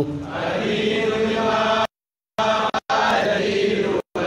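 Sung voices chanting an Arabic devotional poem, holding long drawn-out notes between lines of verse. The sound drops out abruptly for about half a second midway and cuts out briefly twice more.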